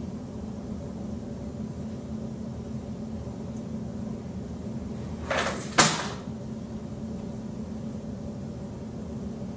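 A brief scuffing noise a little past five seconds in, followed at once by a single sharp bang, the loudest sound, over a steady low hum of room noise.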